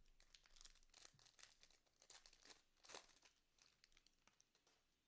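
Faint crinkling and tearing of a trading card pack wrapper being torn open, with many small crackles that die away near the end.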